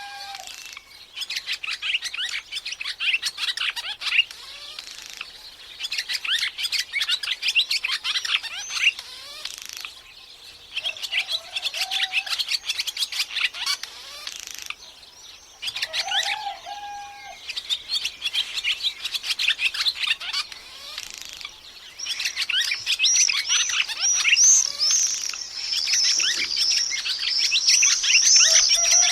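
A dawn chorus of small songbirds chirping densely in bursts with brief lulls between them, growing louder and busier for the last several seconds. A lower, short call cuts in a few times among the chirps.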